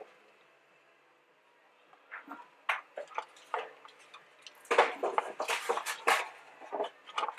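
Plastic model-kit sprues being handled: light clicks and rattles of the hard plastic frames knocking together. It starts after a near-silent second or two and becomes a dense clatter about five seconds in.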